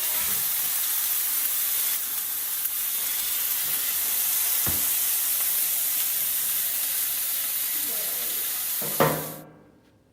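Steady, loud sizzling hiss like food frying on a hot grill, with a knock about halfway through and a louder one near the end, then it cuts off suddenly.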